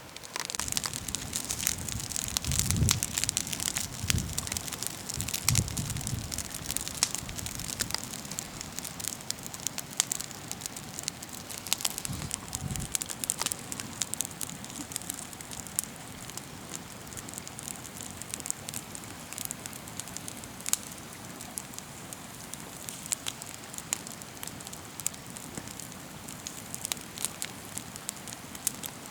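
Small wood campfire crackling, with irregular sharp snaps and pops of burning wood over a soft hiss. A few dull low thumps sound in the first half.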